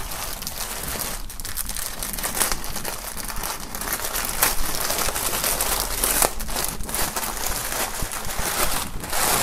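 Thin plastic poly bag crinkling and crackling continuously as hands open it and pull a folded jersey out, with sharper crackles now and then.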